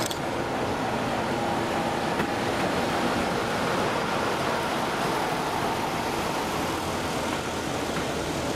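Class 45 'Peak' diesel-electric locomotive with its Sulzer twin-bank engine running as it passes, its engine hum fading after about three seconds as the train of coaches rolls by with a steady rumble of wheels on rail.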